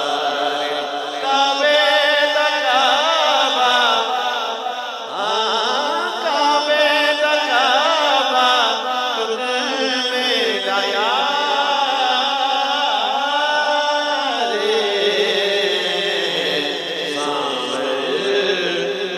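A man singing a naat unaccompanied into a microphone, amplified through loudspeakers, in sliding, ornamented phrases with long held notes about ten to fourteen seconds in.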